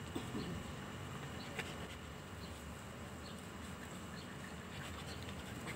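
Faint outdoor insect buzzing: a steady high hum, with a few faint short chirps scattered through.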